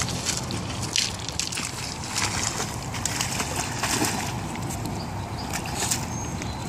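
Three-legged golden retriever splashing through shallow river water as she wades out after a floating retrieving dummy: irregular sloshing splashes.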